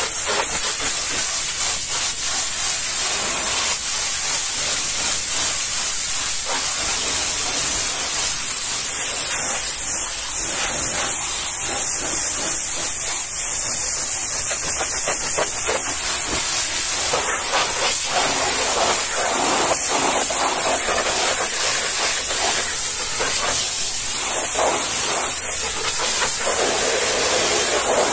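High-pressure washer jet hissing steadily as it blasts a truck trailer's tyres and steel wheel rims, water spattering off the rubber and metal. The splash grows fuller in the latter part.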